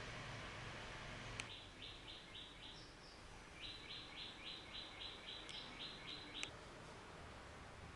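A bird calling a rapid series of short, identical notes at about four a second: a short run of about five, then after a brief pause a longer run of about eleven, over a faint steady hiss. Two faint clicks, one just before the first run and one at the end of the second.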